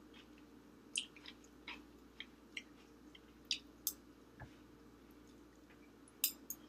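Quiet eating sounds: a metal spoon scooping from a glass plate, then a run of soft clicks and smacks of chewing a mouthful of soft scrambled egg with fish, with one dull knock about four and a half seconds in, over a faint steady room hum.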